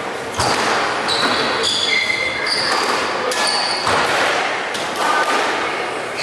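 Squash rally: the ball smacking off rackets and walls about once a second, with brief high-pitched shoe squeaks on the wooden court floor between the hits.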